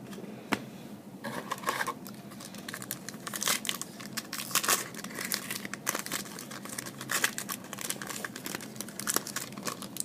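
Trading-card pack wrapper being crinkled and torn open, with cards handled: an irregular run of sharp crackles and rustles.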